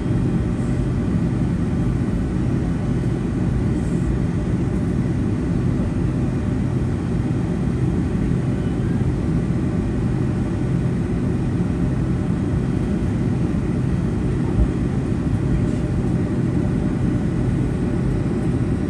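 Steady low rumble of the cabin noise inside a Boeing 757-200 airliner, with a faint steady tone above it.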